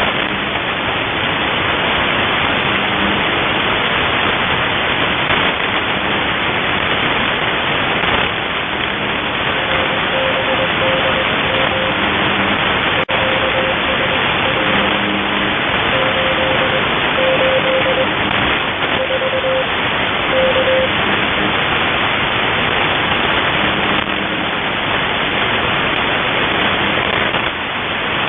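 UVB-76 ('The Buzzer') shortwave signal heard through heavy steady radio static, with short faint low buzzes now and then. About ten seconds in, a higher tone keyed on and off sends Morse code for some ten seconds.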